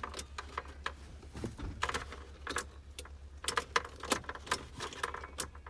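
Keys jangling, with a scatter of light clicks and taps as the ignition key is worked. No whirr from the starter motor follows: it does not spin, a starter that has failed.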